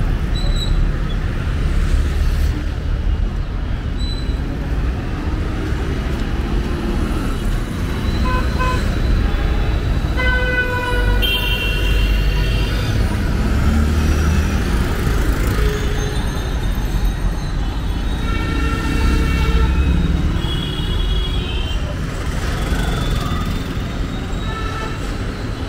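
Busy street traffic: a steady low rumble of engines with vehicle horns honking again and again, several short and longer toots from different horns through the middle and near the end.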